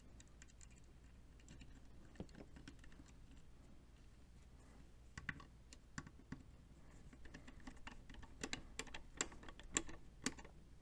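Faint, scattered small clicks and taps of a screwdriver and fingers on a Square D NEMA size 00 motor starter's plastic housing, as its coil terminal screws are tightened during reassembly. The clicks come thicker and sharper in the second half.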